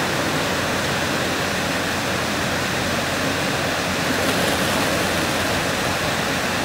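Steady rush of shallow water moving over a pebble bed, with a catfish splashing and thrashing in the shallows about four seconds in.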